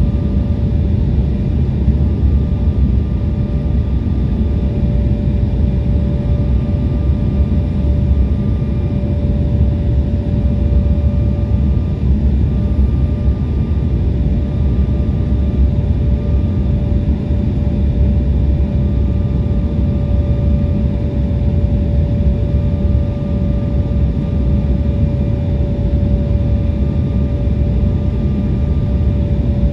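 Steady cabin roar inside an Embraer E175 on approach with its flaps extended: a deep rush of airflow and the twin GE CF34 turbofans, with a constant mid-pitched tone running over it.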